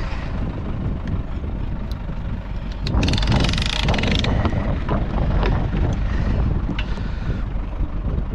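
Wind buffeting the microphone over shallow water at a boat trailer, a steady low rumble, with a louder rushing hiss for about a second starting about three seconds in and a few sharp clicks.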